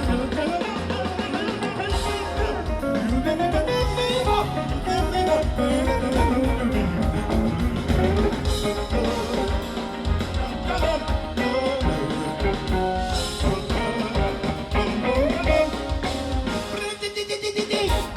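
Live Latin-jazz band playing, with electric guitar lines over drum kit and bass. Near the end it breaks into short accented closing hits.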